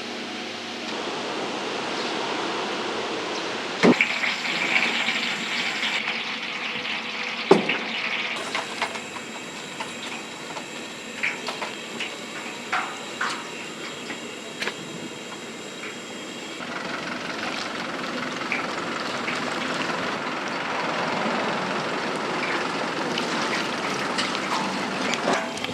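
Food-stall cooking sounds: a steady hiss with sharp knocks of utensils, two loud ones early and smaller clicks later.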